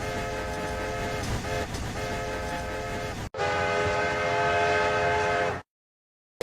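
Train whistle sounding a sustained chord of several steady notes over a low rumble. It cuts off abruptly just past three seconds in and sounds again, louder, for about two more seconds, then stops suddenly.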